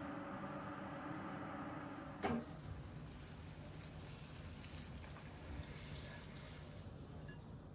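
Water running or pouring in a kitchen, starting just after a short sharp clunk about two seconds in and fading near the end; before the clunk a steady hum.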